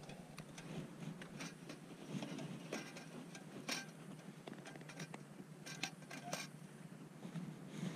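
Faint, irregular clicks and light taps from hands handling and adjusting hurricane oil lanterns, over a low steady hum.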